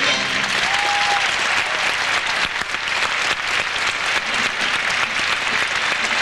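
Theatre audience applauding steadily at the end of a musical number, with one short high-pitched call from someone in the crowd about a second in.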